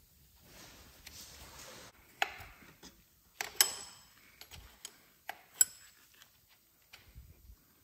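A wrench loosening a motorcycle's chain adjuster retaining nuts: a short scraping stretch, then a handful of sharp metal clinks, the loudest about three and a half and five and a half seconds in.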